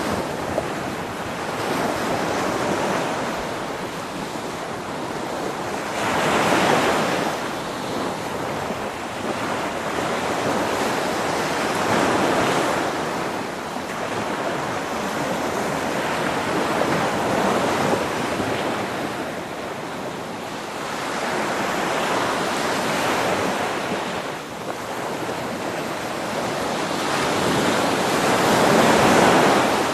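Sea surf: waves breaking and washing ashore in slow swells about every five or six seconds, the loudest near the end.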